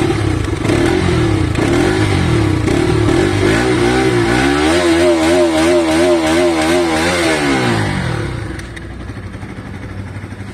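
Bajaj Pulsar RS 200 BS6's single-cylinder engine heard at its exhaust: idling, then revved up about three and a half seconds in, held high with a slight wavering in pitch for a few seconds, and dropping back to idle near the end.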